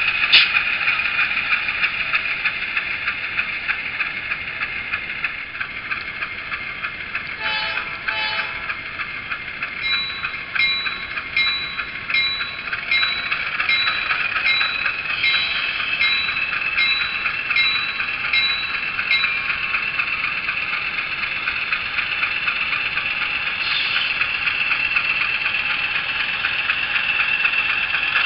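ESU LokSound decoder sound of a GE U28C diesel locomotive, played through the HO-scale model's small speaker: the prime mover runs steadily, with a bell ringing evenly, a little over once a second, for about nine seconds in the middle. A brief pulsing sound comes just before that.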